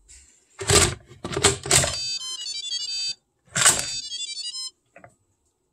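Instant Pot pressure cooker lid knocking and clunking as it is fitted and twisted shut, each time followed by the cooker's short electronic jingle of beeping notes; this happens twice, then a faint click.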